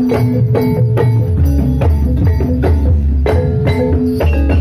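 Banyumasan gamelan music for ebeg: kendang drum, metallophones and hanging gongs playing a steady beat of about three strokes a second over a sustained low gong hum.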